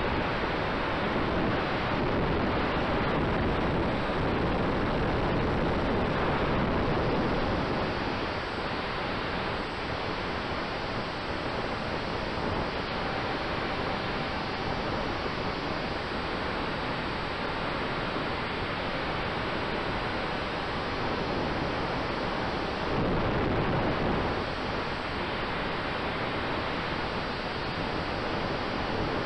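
Steady rush of wind noise on an onboard camera riding a large-scale model biplane in flight, with a faint steady tone underneath. The rush eases a little after the first third and swells briefly near the end.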